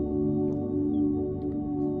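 Background music: soft held chords that change near the end.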